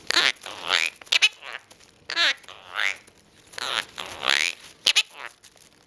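Quaker parrot (monk parakeet) giving a run of short calls and chatter, about one or two a second, several sliding down in pitch.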